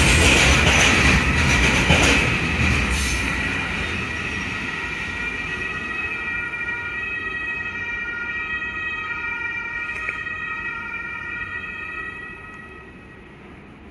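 Container freight train's wagons rolling past and fading away, with several steady high-pitched wheel squeals over the rail noise. The rolling is loudest in the first couple of seconds.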